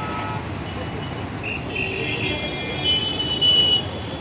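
Busy street noise: a steady traffic hum with scattered voices, and a high steady tone a couple of seconds in that is loudest near the end.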